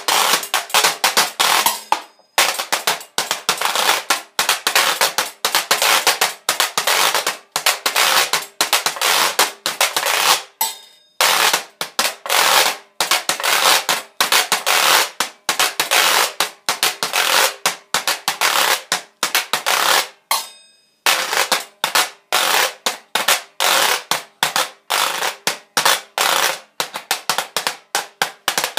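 A homemade washboard rig with a bowl and a tobacco tin, played as a percussion instrument in fast, steady rhythmic strokes. The playing breaks off briefly about every nine seconds.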